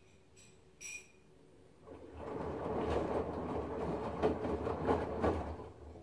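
LG front-loading washing machine tumbling a load in plenty of water: after a short click about a second in, the drum turns for about four seconds with water and laundry sloshing and splashing, then stops.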